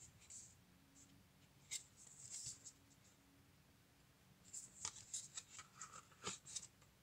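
Faint rustling and light clicks of a cardboard gatefold CD sleeve being handled and opened, with a sharp click about two seconds in and a busier run of rustles and clicks in the second half.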